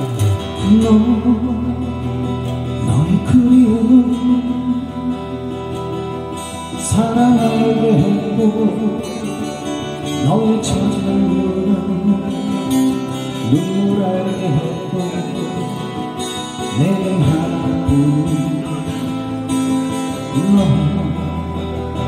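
Live acoustic duo: two steel-string acoustic guitars strummed and picked together, with a man singing a slow ballad melody over them in phrases.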